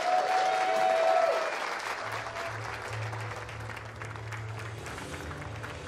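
Audience applauding, with one long cheer rising over the clapping in the first second and a half. Low, sustained music comes in about two seconds in and runs on under the applause.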